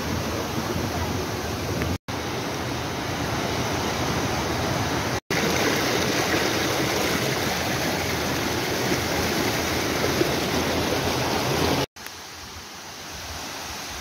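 Steady rush of a forest stream and small waterfall, an even hiss broken by three brief silent gaps where clips are joined; much quieter after the last gap, near the end.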